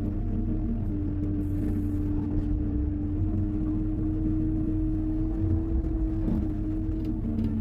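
Hyundai 140 wheeled excavator's diesel engine running steadily while working, a low rumble with a steady pitched tone held above it.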